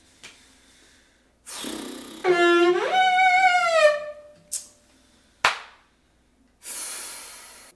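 Cello being bowed in fits and starts: a scratchy bow stroke, then one note that slides up and slowly sags before the playing breaks off. A sharp knock follows, and a hiss near the end.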